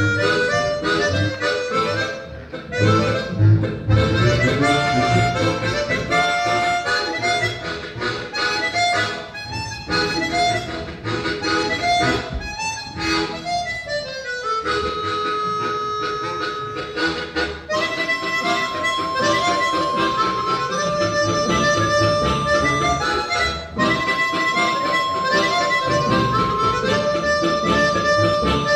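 Harmonica ensemble playing a lively Balkan tune: melody harmonicas over a pulsing bass harmonica. About halfway through a quick falling run of notes leads into long held high notes over the beat.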